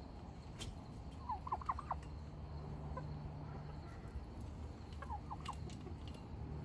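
Tom turkeys gobbling twice, a quick run of short falling notes about a second in and a shorter one about five seconds in. The birds are agitated.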